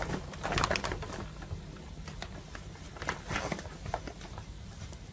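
A cat's claws scrabbling and rustling on a hanging fabric shoe organizer as it climbs it: a run of short, irregular scratchy rustles over a steady low hum.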